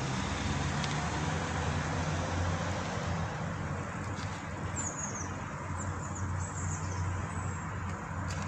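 Road traffic: a car driving over the level crossing and away, then a steady low traffic hum, with a few short high chirps about five seconds in.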